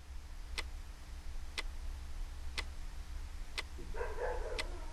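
Clock ticking steadily, about one tick a second, over a low hum. About four seconds in, a short yelp cuts in.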